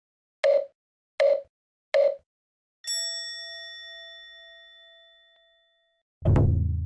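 Intro sound effects: three short pops about three-quarters of a second apart, then a bright bell-like ding that rings out for about three seconds, then a deep low boom near the end that rings on as it fades.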